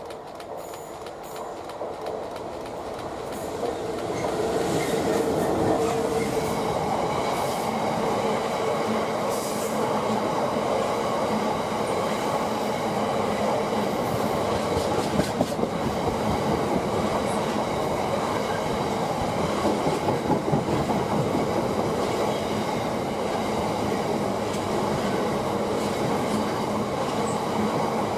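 Freight train passing through a station on the near track. The locomotive draws closer, getting louder over the first few seconds and passing about four seconds in. A long rake of bogie hopper wagons follows, rolling by with steady wheel and rail noise and bursts of clatter over the rail joints.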